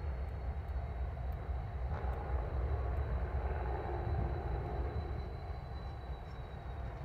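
Low, steady rumble of a freight train moving, swelling slightly in the middle, with a faint steady high-pitched tone above it.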